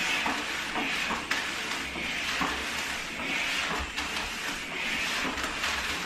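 Vax steam mop pushed back and forth over floor tiles: a steady hiss of steam and the pad swishing across the tiles, swelling and fading with each stroke.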